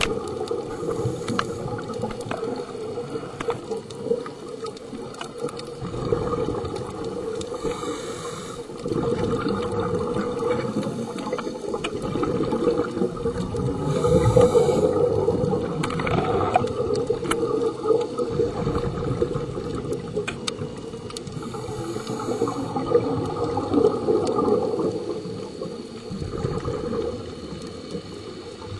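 Muffled underwater sound of scuba diving: a steady low rush of water, with a diver's regulator breathing and exhaled bubbles gushing about every seven seconds.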